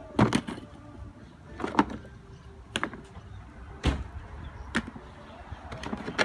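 A series of about six sharp knocks or clanks, irregularly spaced, over a steady low hum.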